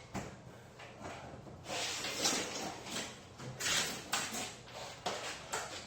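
Garage door hardware being handled during a repair: irregular scraping and rattling of metal parts, a handful of short clatters in the second half.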